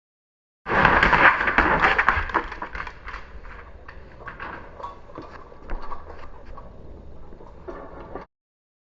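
Pugs eating: a dense, irregular run of crunching and clicking, loudest for the first couple of seconds, then quieter. It starts suddenly just under a second in and cuts off abruptly near the end.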